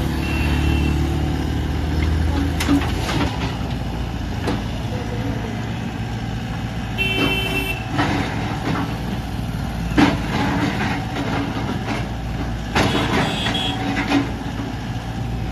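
Diesel engines of a crawler excavator and a tipper truck running steadily, mixed with passing road traffic. There are a few short sharp knocks, and a brief high beeping tone comes about seven seconds in.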